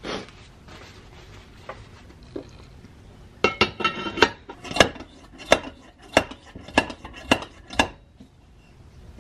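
Brass blowlamp parts clinking against one another as they are handled and fitted. A run of about a dozen sharp, ringing metallic clinks starts about three seconds in, falling into a steady beat of roughly one every half second before stopping.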